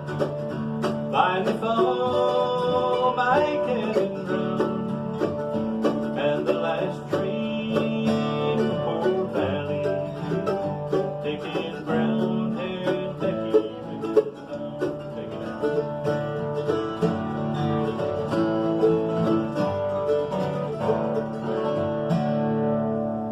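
Bluegrass band playing, with banjo and guitar prominent. The music fades out near the end as the song closes.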